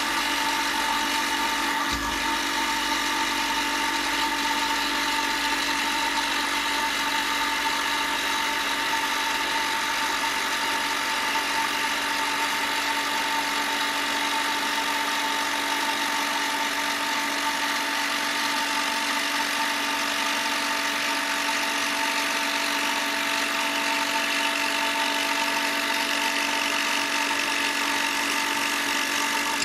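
Power tool motor running at a steady, unchanging pitch while working pear wood.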